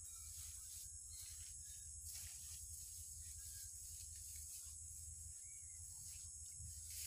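Faint outdoor ambience: a steady high drone of insects such as crickets, with a few faint short chirps and a low steady rumble underneath.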